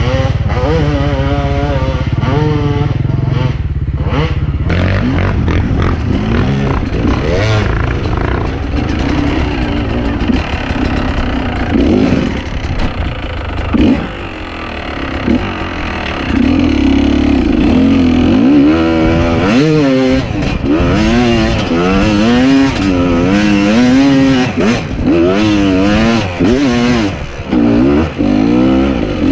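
Enduro dirt bike engine revving up and down again and again, the pitch rising and falling every second or so as the throttle is worked over rough ground, with a few sharp knocks along the way.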